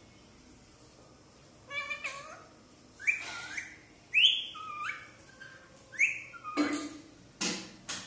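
Rose-ringed parakeet calling: a string of short chirping, whistle-like calls that rise and fall in pitch, starting about two seconds in, then two short, harsher and noisier calls near the end.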